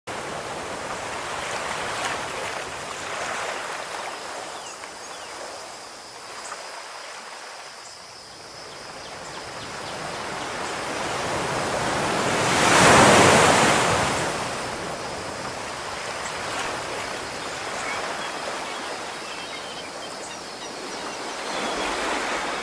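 Ocean surf: waves washing in and drawing back in slow swells, with one larger wave breaking about halfway through.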